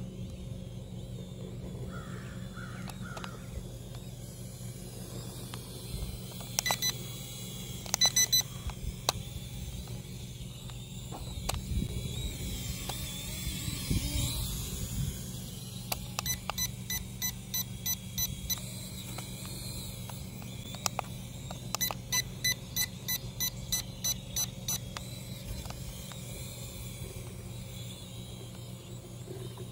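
Q10 mini camera drone flying, its propellers humming steadily and swelling as it comes close partway through. Several runs of rapid, high electronic beeps sound over it.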